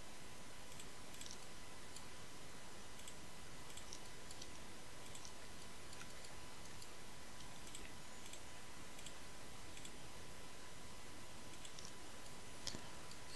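Faint computer mouse clicks at irregular intervals, made while selecting faces in 3D modelling software, over a steady background hiss with a faint constant tone.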